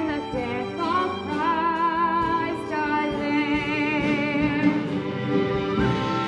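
Music: a sung melody with strong vibrato over instrumental accompaniment, the voice moving slowly from note to note.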